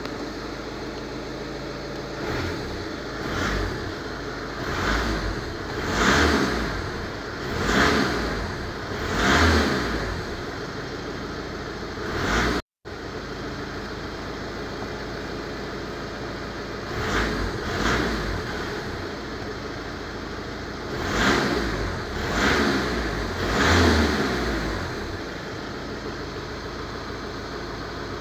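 Car engine at idle, revved in quick blips of the accelerator pedal: two runs of short revs about one and a half seconds apart, each rising and falling back, with steady idling between the runs. The sound cuts out for a moment about halfway through.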